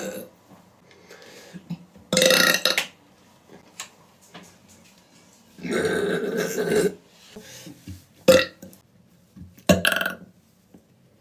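A woman burping loudly, four times: one burp about two seconds in, a longer drawn-out one near the middle, and two short ones near the end.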